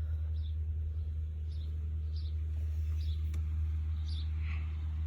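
A steady low machine hum, with faint short high-pitched chirps repeating about once or twice a second.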